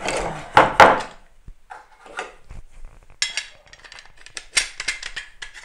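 A large steel bar clamp being handled and pulled free of a wooden leg-vise jaw: two short scrapes of the metal bar against the wood within the first second, then a run of light metallic clicks and rattles from the clamp's sliding jaw on its bar.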